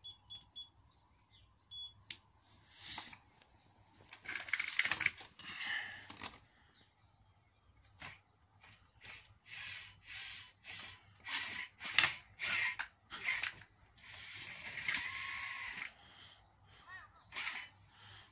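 Brushed electric drive motors and spur-gear drive of a hobbyweight combat robot, run from the radio in a string of about fifteen short bursts. There is a longer run of about two seconds around three-quarters of the way in, with a steady whine. This is a first floor test of the drive.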